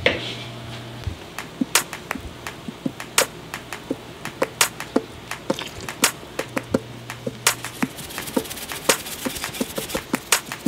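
Large pot of seasoned water steaming on the stovetop as it comes up to the boil, with irregular sharp ticks and pops, a few each second.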